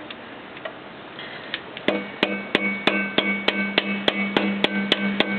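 Hammer blows on a soft copper-tube drift, driving the rear axle out of a Harley-Davidson Road King's wheel. After a few light taps, steady strikes begin about two seconds in, roughly three a second, each leaving a metallic ring.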